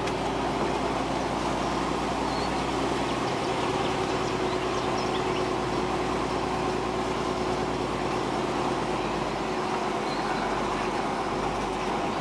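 A farm vehicle's engine running steadily, heard from inside its cab as it drives slowly along a rough lane. It makes an even drone with a faint steady whine.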